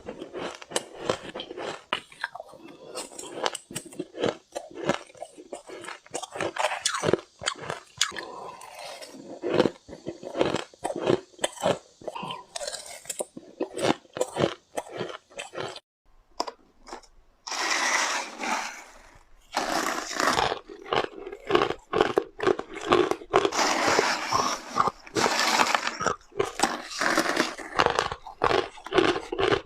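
Ice being bitten and chewed close to the microphone: a continuous run of crisp crunches and cracks. The crunching stops briefly just past halfway, then comes back denser.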